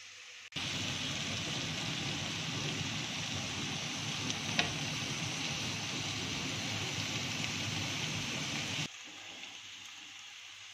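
Chicken and vegetable skewers sizzling in an oiled cast-iron grill pan: a steady sizzle that starts suddenly about half a second in and cuts off near the end, with one short click about halfway.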